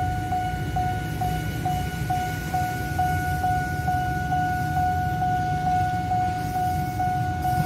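Railway level-crossing warning alarm sounding: a steady electronic tone pulsing a little over twice a second, over a low, steady rumble of engines.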